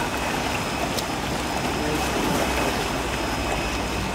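Water churning and splashing as large fish crowded in a seine net thrash in shallow pond water.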